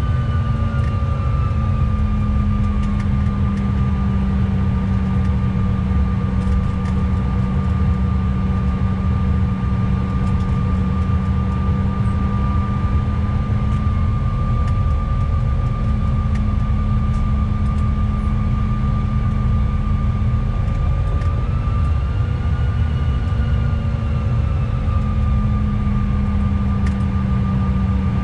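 Cabin noise of a CRJ900 regional jet taxiing: its rear-mounted GE CF34 turbofans running at low power with a steady whine over a dense low rumble.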